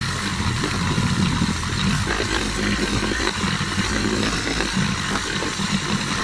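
Handheld electric buffer with a foam pad polishing out painted motorcycle fairing, sped up tenfold: a dense, steady, chattering whir.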